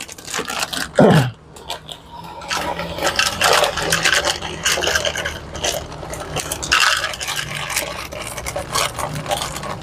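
Repeated scraping and light clattering of cat food and a feeding dish being handled while stray cats are fed. A short meow falling in pitch about a second in.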